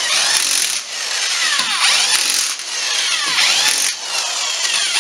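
Impact wrench spinning lug nuts onto an ATV's rear wheel: a loud, continuous whirring hiss whose pitch swoops down and back up several times.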